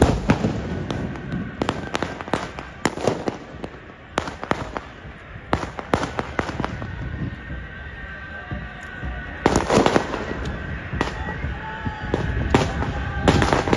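A volley of rifle shots from several shooters firing at once: many sharp cracks, irregular and overlapping, coming in clusters, with the loudest near the start and about ten seconds in.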